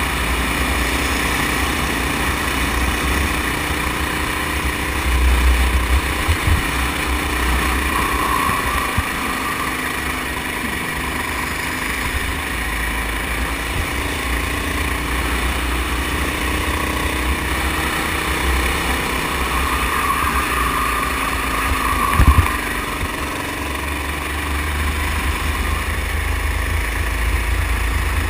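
Go-kart's small engine running steadily under way, heard from on board, with a heavy low rumble. Brief sharp knocks come about five to six seconds in and again about 22 seconds in.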